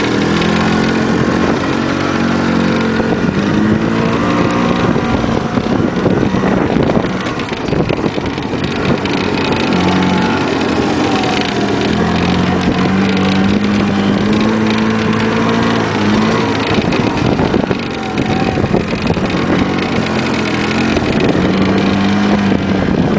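1990 EZ-GO golf cart's two-stroke gas engine running under load as the cart drives over rough ground. The engine pitch eases off twice and climbs again as the throttle changes.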